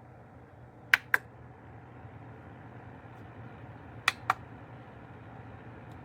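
Two pairs of quick, sharp clicks about three seconds apart, over a steady low hum.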